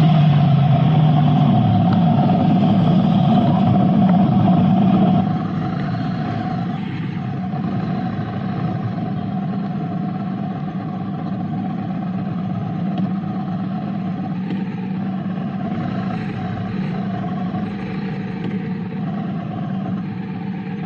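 Triumph Scrambler 900 parallel-twin motorcycle running on the road. About five seconds in the sound drops in level and carries on more steadily to the end.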